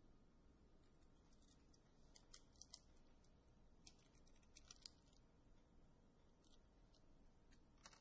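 Near silence: quiet room tone with faint scattered light clicks and taps, in two small clusters about two and a half and four and a half seconds in and once more at the end.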